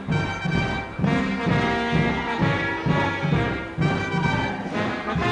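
Circus band music led by brass, with held notes over a steady, quick beat in the bass.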